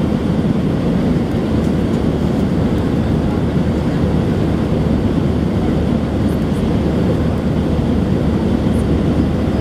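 Airbus A320-200 in climb-out after takeoff, heard from inside the passenger cabin: engines at climb power and the rush of air over the fuselage make a steady, low-pitched cabin noise that does not change.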